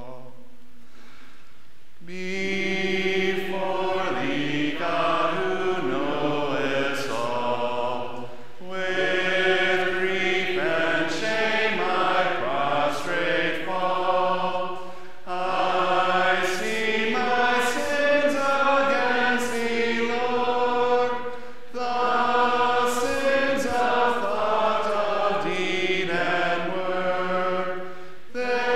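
Congregation singing a hymn unaccompanied, with no organ. It comes in about two seconds in and sings in phrases separated by short breaths roughly every six to seven seconds.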